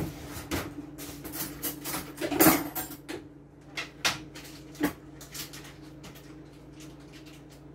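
A kitchen utensil clicking, tapping and scraping against dishware and a pot as butter is portioned and added to the vegetables. A quick flurry of knocks at first, thinning to a few taps about five seconds in.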